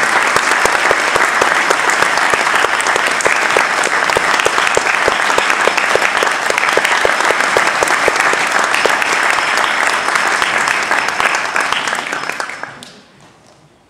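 Audience applauding in a concert hall, a dense steady clapping that fades away about thirteen seconds in.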